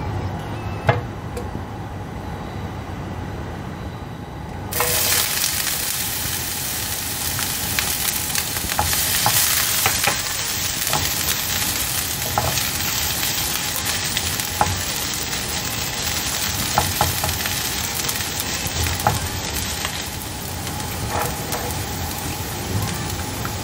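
Julienned ginger frying in hot oil in a nonstick pan: a sudden sizzle starts about five seconds in and keeps going steadily, with light clicks from the silicone spatula stirring it.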